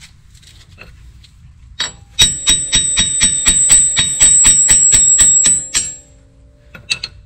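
Hammer rapidly striking the wheel studs on a Mitsubishi 3000GT VR4's steel wheel hub to knock them loose, about five blows a second for three to four seconds, each blow ringing with a high metallic ring. A single blow comes just before the run and a couple of lighter taps near the end.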